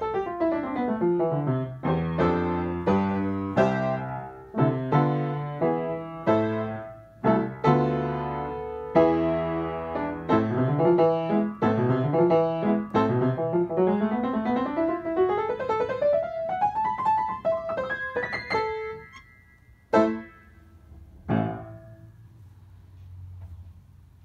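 Upright piano played fast, with quick falling and rising runs of notes and loud struck chords. Near the end the playing thins to a couple of separate chords that ring out and die away.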